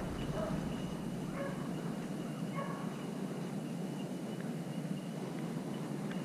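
A few faint, distant beagle bays, a pack of hounds running a rabbit, in the first three seconds, over a steady low rushing background.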